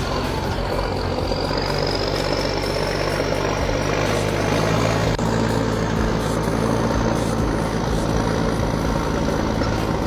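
Tow truck engine running steadily while driving, with a thin high whine that rises over the first few seconds and then holds steady.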